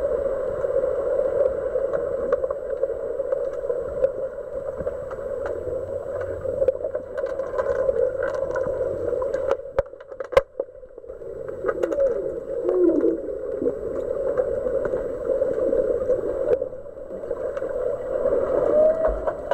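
Muffled underwater noise picked up by a submerged camera in a swimming pool: a steady hum with scattered small clicks. There is one sharp knock about ten seconds in.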